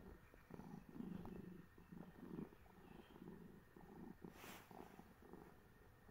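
A domestic cat purring, faint and close, the low rumble coming in short repeated spells, with a brief soft rustle about four and a half seconds in.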